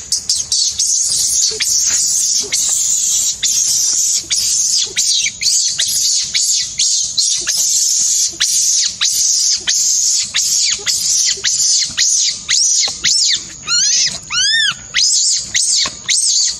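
Shrill baby-animal squeaking: a fast run of high squeaks, about three a second, over a steady piercing hiss, with a louder cluster of arching squeals near the end.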